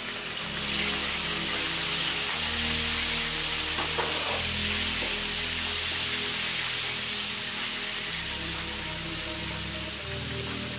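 Raw shrimp sizzling in hot oil in a nonstick wok as they are stirred with a plastic slotted turner, the sizzle easing slightly near the end.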